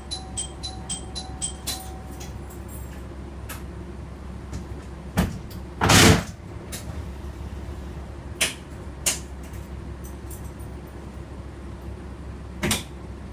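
Diesel railcar's engine running steadily, heard from the driver's cab, with a few sharp knocks and clunks scattered through; the loudest comes about six seconds in. A rapid, chime-like ticking repeats over the first two seconds and then stops.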